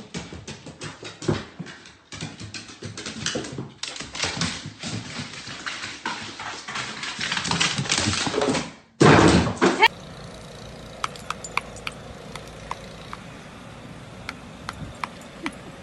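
Dog's claws clicking and scrabbling on a hard floor or stairs, many quick irregular knocks, then a loud brief noise and, near the end, faint steady noise with scattered ticks.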